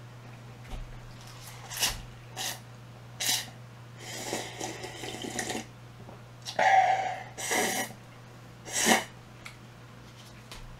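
Close-miked mouth sounds of eating and breathing: a series of short bursts a second or so apart, with a longer stretch in the middle, and the loudest ones in the second half.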